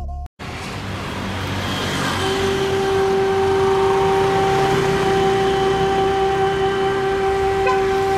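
City street traffic: cars and motor scooters running past, with a steady humming tone that comes in about two seconds in and holds.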